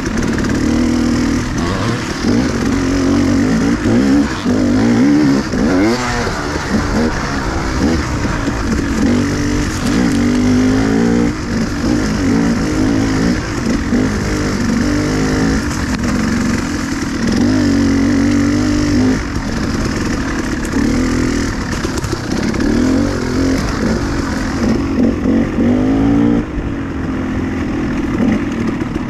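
Dirt bike engine under way on a trail ride, its pitch rising and falling over and over with the throttle.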